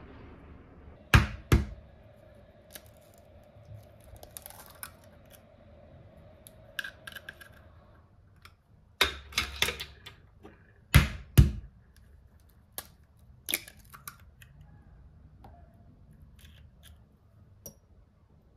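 Raw eggs being cracked open, hard shell knocks: a pair about a second in and several more around halfway, with smaller clicks between.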